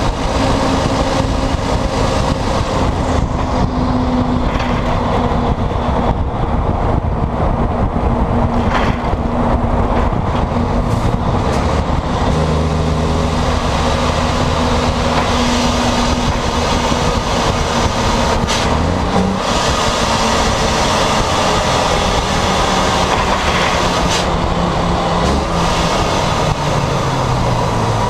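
Volvo FMX 460's 13-litre diesel engine running loud through a broken, straight-piped exhaust as the truck drives, heard right at the exhaust stack. The engine note drops about two-thirds of the way through and falls again near the end.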